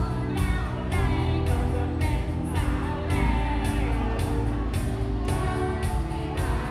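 Pop song playing loud, with a steady beat about twice a second, heavy bass and a sung melody.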